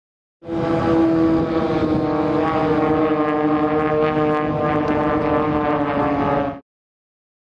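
Aircraft engines running with a loud, steady, many-toned drone whose main tone sags a little in pitch about a second in. The sound cuts in and out abruptly.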